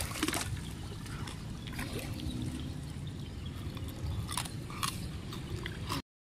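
Water sloshing and trickling against the hull of a narrow fishing boat, over a low steady rumble, with a few light knocks. The sound drops out briefly near the end.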